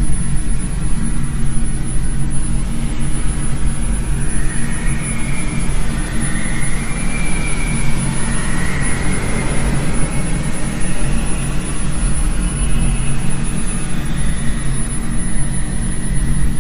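Dark ambient horror drone: a loud, steady low rumble with a noisy hiss above it, and hazy higher tones rising and fading through the middle.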